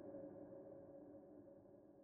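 Faint ambient background music, a steady held synth tone, fading out toward silence.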